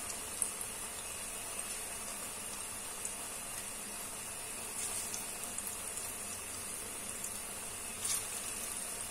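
Pakoras deep-frying in hot oil in a karahi: a steady bubbling sizzle with scattered small crackles, and a brief louder spatter about eight seconds in.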